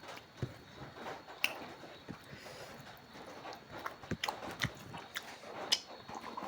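A person chewing and smacking while eating, with short mouth clicks coming at an irregular pace.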